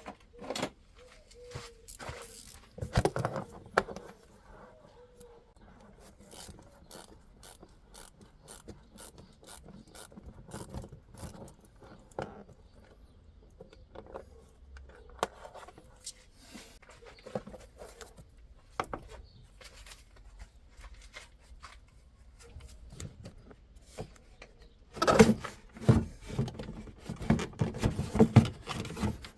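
Hand work on a car: scattered clicks, light knocks and short scraping sounds, like tools and parts being handled, turning into a denser, louder clatter about 25 seconds in.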